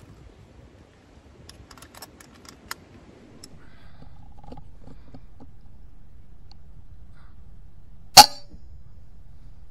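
A single shot from a .177 FX Dreamline pre-charged pneumatic air rifle about eight seconds in: one sharp crack with a short tail. A few faint clicks come before it.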